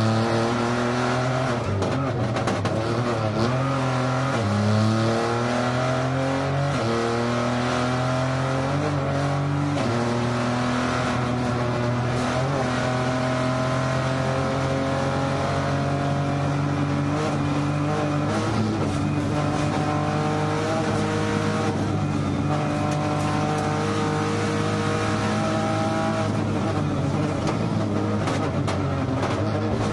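Rally car engine heard from inside the cockpit at speed: the revs climb and drop sharply at several gear changes in the first ten seconds, then run higher with slower rises and falls.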